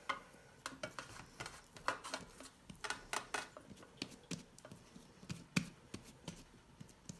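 Hands patting and pressing a soft flour-and-water dough casing wrapped around a whole chicken in a non-stick metal baking pan: a string of irregular soft pats and light taps, with small knocks of the pan.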